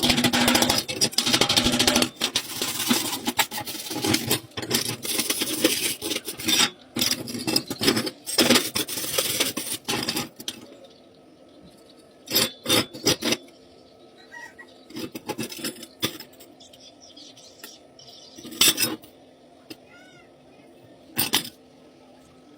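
Crackling arc welding for about ten seconds, stopping and starting in short runs. After that come scattered sharp metal knocks and clinks over a faint steady hum.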